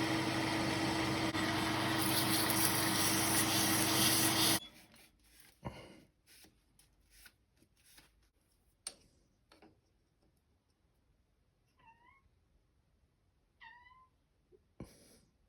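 A metal lathe runs with a steady hum and stops about four and a half seconds in, while the pin's outside diameter is being brought to size. After it stop come a few light clicks and knocks, then a cat meows twice, briefly, near the end.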